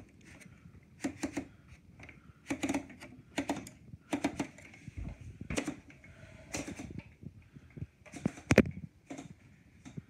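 Manual portable typewriter keys clacking one at a time at an uneven pace, some strikes in quick pairs, with the loudest clack about eight and a half seconds in.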